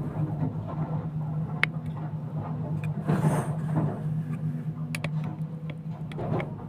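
SANY SY225 hydraulic excavator's diesel engine running steadily while its bucket digs into broken rock, with a few sharp clacks of stone on steel and a louder scraping rush about three seconds in.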